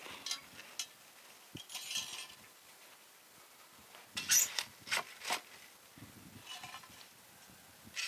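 A shovel scraping and scooping hot coals onto and around a cast-iron camp oven, heaping them on so the damper bakes from above as well as below. A few separate gritty scrapes with metallic clinks, the loudest about halfway through.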